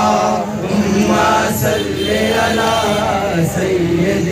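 Voices chanting a melodic devotional chant together, continuous and loud.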